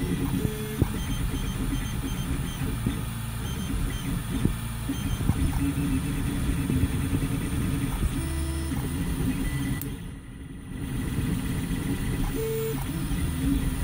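3D printer printing its first layer. The stepper motors whine in short steady tones that jump to a new pitch with each move of the print head.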